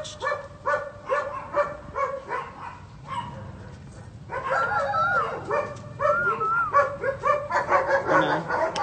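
German Shepherd barking repeatedly, about three barks a second, then giving high wavering cries about halfway through, and barking rapidly again near the end.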